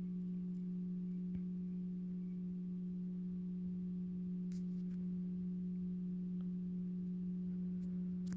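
Synthesized low-pitch Thunderbolt 1000T siren tone played through a karaoke machine speaker: one low, steady tone that holds the same pitch throughout, with a few faint clicks over it.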